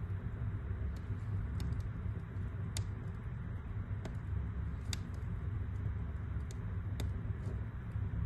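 Wood fire burning in a fireplace: a steady low rumble with sharp, irregular crackles and pops about once a second, the loudest near three and five seconds in.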